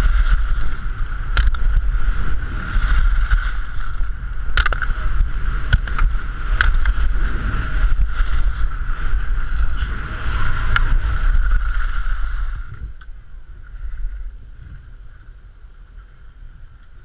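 Wind rushing over the camera microphone and skis carving on snow during a fast slalom run, with a few sharp knocks along the way. About twelve and a half seconds in, the rushing cuts off suddenly as the skier stops, leaving only faint wind.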